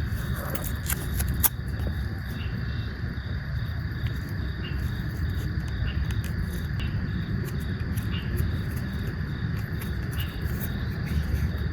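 Insects chirping steadily over a low rumble, with a few sharp clicks in the first second and a half.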